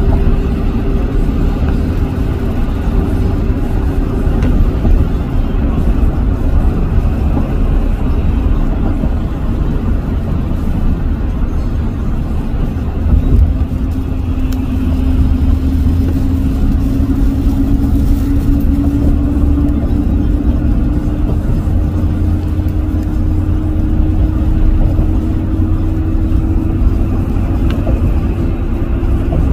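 Steady low road and engine rumble of a pickup-filled freeway heard from a moving vehicle, with a hum that rises slowly in pitch over the second half.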